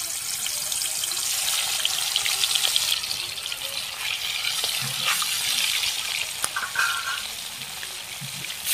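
Salt-and-turmeric-rubbed rupchanda fish pieces frying in hot mustard oil in a kadai: a steady loud sizzle with fine crackles, broken by a few light clicks of a metal spatula against the pan.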